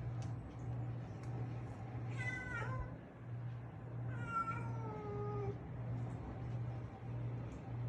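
Cream-and-white cat meowing twice to greet its owner, about two seconds in and again near the middle; the second call is longer and falls in pitch. A low hum pulses steadily underneath.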